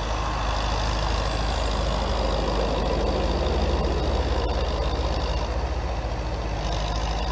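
Tractor diesel engine running steadily at an even pace.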